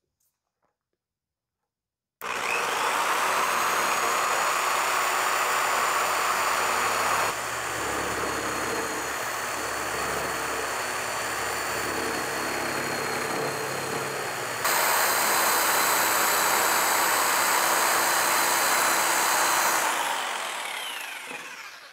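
Jigsaw starting about two seconds in and cutting through a plastic Swisstrax garage floor tile clamped to a board, its motor whining steadily. The cut goes quieter for several seconds in the middle, louder again, and the motor winds down near the end.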